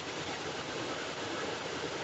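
Steady hiss of an air traffic control radio recording between transmissions.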